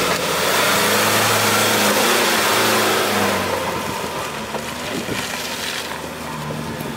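Nissan Navara pickup's engine revving hard under load as it climbs a muddy slope. It is loudest for the first three and a half seconds, then fades as the truck pulls away.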